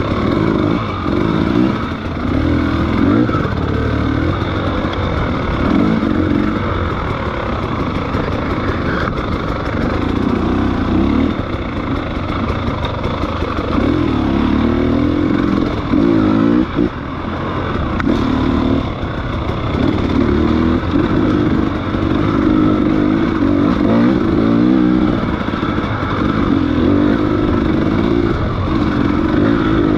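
Motorcycle engine running under way, the revs rising and falling again and again as it is ridden.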